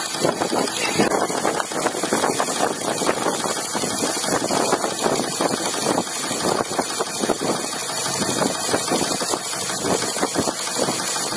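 A pump driving a 10-ton tripod jack runs steadily with a fast, even rattling chatter as the jack's threaded ram extends.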